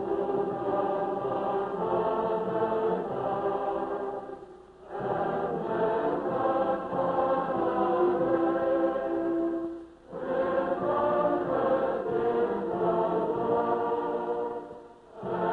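A choir singing in long held phrases of about five seconds each, with short breaks between them, on a thin-sounding 1950s film soundtrack.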